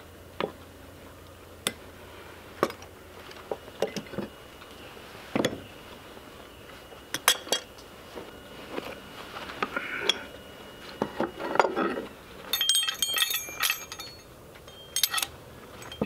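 Steel hand tools and axle hardware clinking and knocking as axles are fitted into a wooden sawmill carriage: irregular sharp metal clinks every second or so, with a busier run of high jingling near the end.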